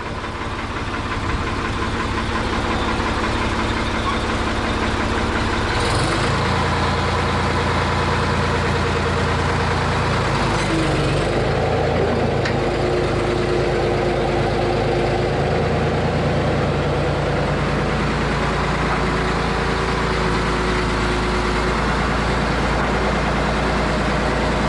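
The 1978 Ford 555 backhoe's three-cylinder diesel engine running steadily after a cold start. Its note shifts about six seconds in and then holds steady.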